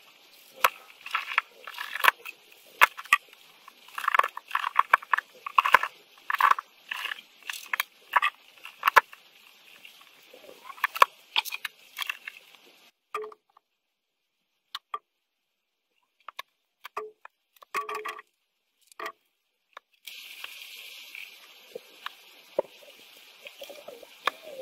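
Quick, irregular clicks and taps of small plastic and metal parts being handled and fitted together while a car cassette stereo's circuit board and casing are reassembled. After about half way they thin out to a few scattered clicks, with stretches of dead silence in between.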